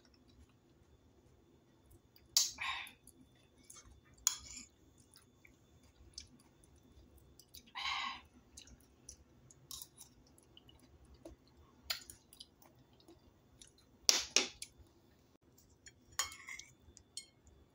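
Eating sounds: a metal spoon cutting and scooping silken tofu in soy sauce from a ceramic plate, with light clinks and chewing, as about half a dozen short, quiet sounds spread a second or more apart.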